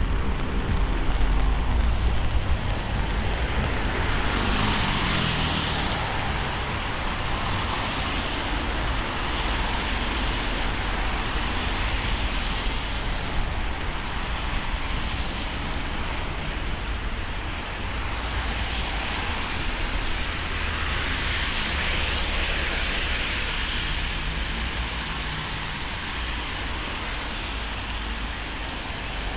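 Steady rain with road traffic passing on a wet road: several vehicles swish by in slow swells over a low engine rumble.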